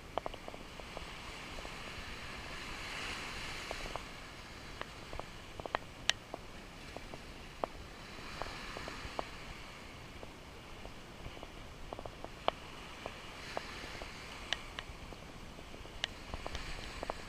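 Small waves washing up on a sandy beach on a calm day, swelling and fading about every five or six seconds, with scattered small clicks and taps over them.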